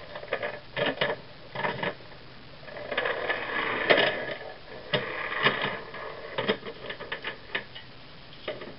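Anchor chain rattling and clinking link against link as it is pulled by hand out of a boat's anchor locker. It comes in uneven runs, thickest about three to six seconds in, with a string of single sharp clinks near the end.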